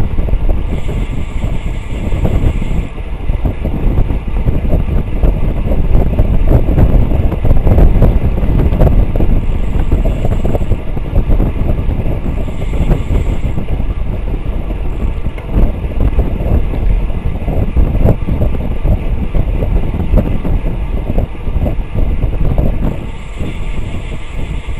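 Loud, gusty wind noise on the microphone of a bike-mounted camera travelling at about 26 mph, with road and tyre rumble underneath.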